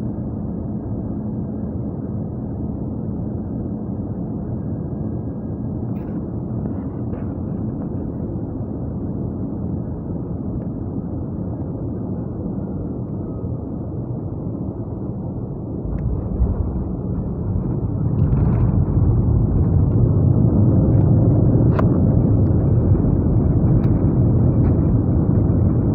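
Airliner cabin noise during landing: a steady hum of engines and airflow, then about 16 seconds in a sudden low rumble as the wheels meet the runway, and from about 18 seconds a louder, deeper rush as the engines spool up for reverse thrust and the plane brakes on the rollout.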